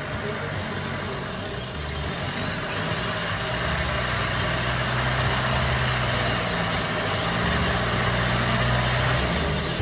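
Engine of an odong-odong tourist mini train running as it drives slowly toward the listener, its low drone growing louder from about two seconds in.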